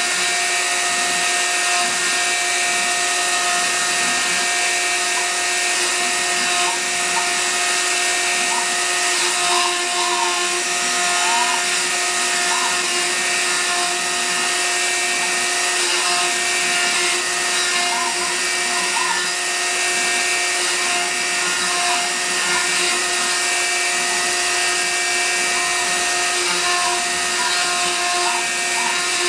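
Hobby CNC router running a carving job: a steady whine from the spindle motor over a dense hiss, with short rising and falling chirps from the stepper motors as the axes move.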